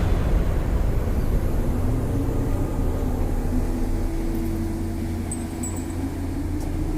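Heavy diesel machinery engine running steadily with a low rumble and a steady hum, which comes through more clearly in the second half.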